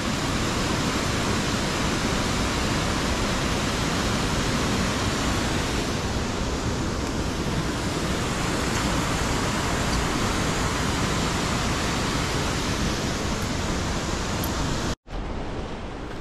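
Rogie Falls waterfall pouring over rocks: a steady, powerful rush of water. It cuts off abruptly near the end, leaving a quieter rushing.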